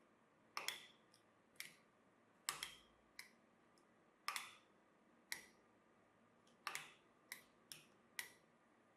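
A dozen or so sharp clicks or taps at uneven intervals, some in quick pairs, each with a brief ringing tail, over near silence.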